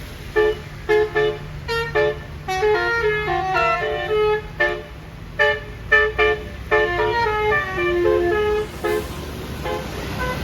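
Basuri telolet multi-tone air horn on a bus playing quick melodic runs of short blasts, the notes stepping up and down in phrases with brief gaps, over a steady low hum.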